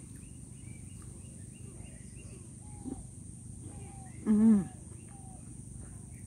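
A woman gives one short hummed "mmm" with her mouth full of pomelo about four seconds in, rising then falling in pitch. Faint bird chirps and a steady outdoor background noise run under it.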